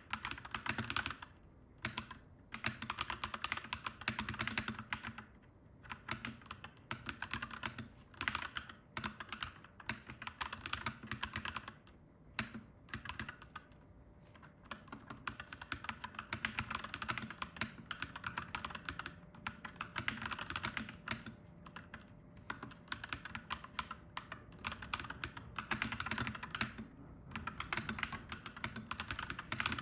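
Clacky mechanical keyboard being typed on in quick runs of keystrokes, broken by brief pauses.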